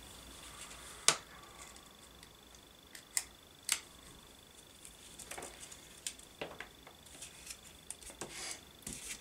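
Small scissors snipping around a thin clear plastic cockpit canopy: scattered faint, sharp snips at irregular intervals, with light rustling of the plastic sheet between them.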